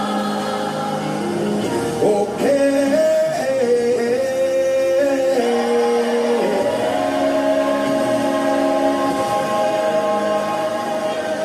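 Gospel worship singing by voices together, holding long notes that slide from one pitch to the next.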